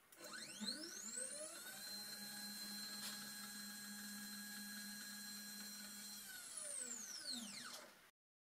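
Stepper motor and lead screw of a Sainsmart 3018 PROVer desktop CNC driving the X-axis carriage on a 100 mm jog. A faint whine rises in pitch as the axis speeds up, holds steady for about four seconds, then falls as it slows and stops.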